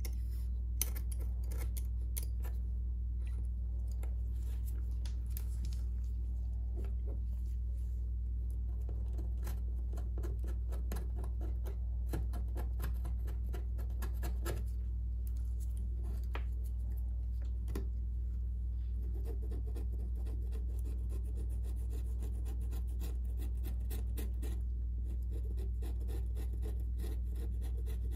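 Metal pry tool scratching and clicking against the opened Samsung Galaxy Note 9's frame and components: scattered small scrapes and ticks over a steady low hum.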